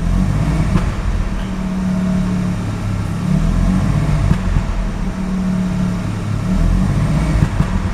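Mazda RX-7 FD's twin-rotor 13B rotary engine running with the throttle held slightly open, uneven and stumbling: a misfire that shows only off idle, even with new spark plugs.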